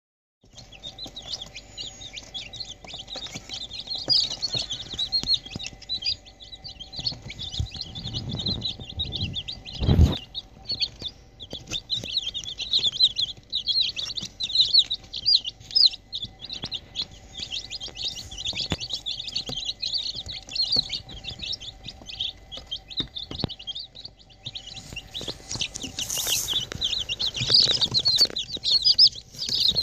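A brood of three-day-old mixed-breed chicks peeping without pause, many short high chirps overlapping. A single sudden thump about ten seconds in.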